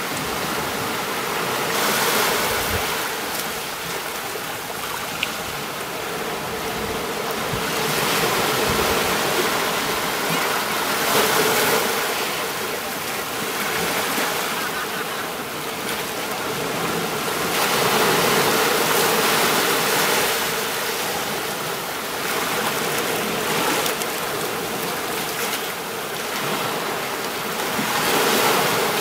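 Small sea waves breaking and washing up a beach, a steady surf hiss that swells and eases every few seconds as each wave comes in.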